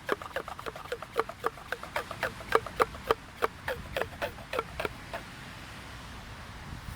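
Hand or foot air pump worked in quick, even strokes, about four or five a second, each with a short squeak, stopping about five seconds in. It is air being pumped out of an inflatable boat to deflate it.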